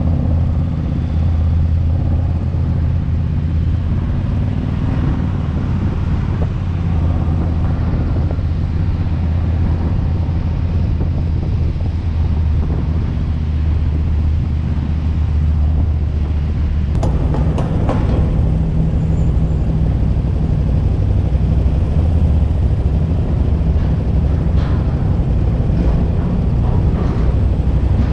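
Motorcycle engine running steadily at low revs, a constant low drone. About 17 s in the sound shifts and a few sharp clicks cut through it.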